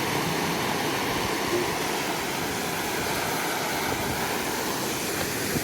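Steady rushing of river water flowing under and around a low submerged bridge.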